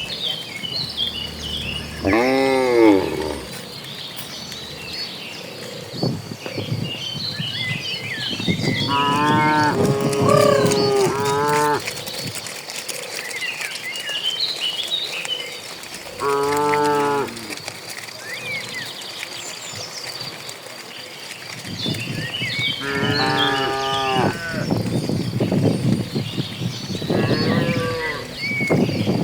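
Cattle mooing: several long, drawn-out moos that come every few seconds, some overlapping, while small birds chirp high and continuously in the background.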